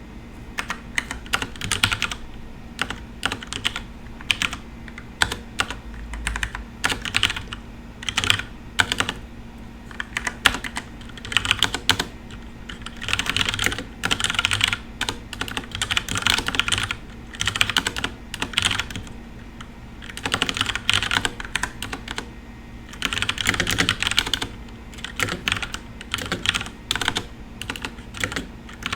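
Fast typing on a FILCO Majestouch Ninja tenkeyless mechanical keyboard with tactile Cherry MX Brown switches, in uneven bursts of keystrokes separated by short pauses.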